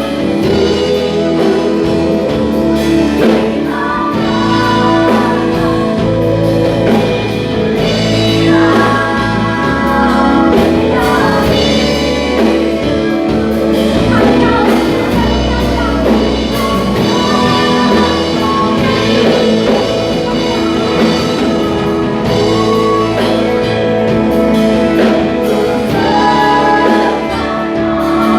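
Christian praise and worship music: a group of singers with a band, sustained sung lines over steady bass and chords.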